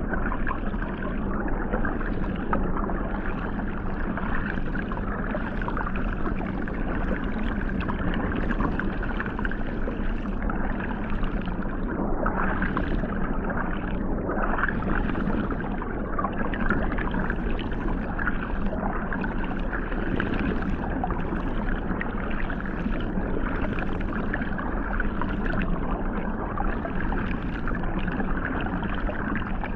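Hot tub water jets heard underwater: a steady, muffled rush and churn of water with a low hum underneath.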